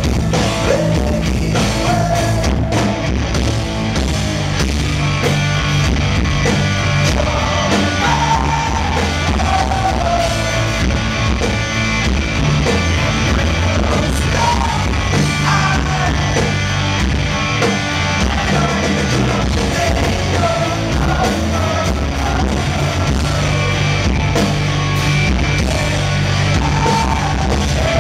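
Live rock band playing loud, with electric guitars, bass and drums under a male lead singer.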